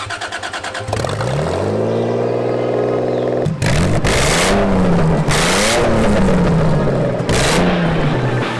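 Toyota 2JZ straight-six engine cranking on the starter, catching about a second in and climbing to a steady speed on its first start. It is then revved up and down three times, with short bursts of hiss.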